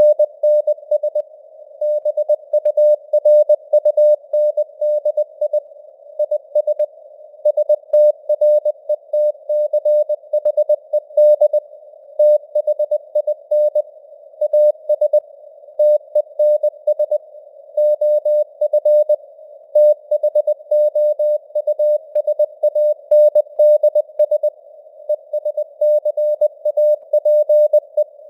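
Morse code sent at 20 words per minute as a mid-pitched tone keyed on and off in dots and dashes, over a faint band of simulated radio static.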